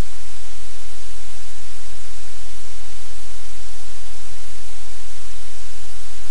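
Loud steady static hiss with a low electrical hum underneath, unchanging throughout: noise on the audio feed rather than any sound in the room.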